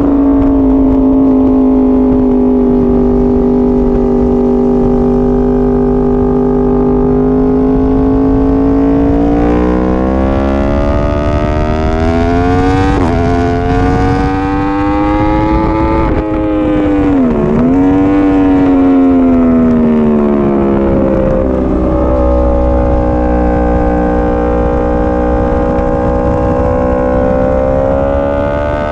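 Yamaha R1 inline-four engine under load at track speed. Its note holds steady, then climbs with a brief break, falls sharply with a quick dip near the middle, and rises again before settling.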